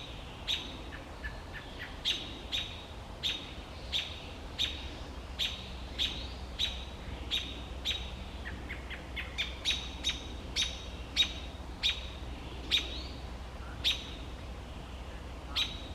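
Robin giving sharp, repeated chirping calls, about one to two a second, with a quicker run of fainter chirps about halfway through.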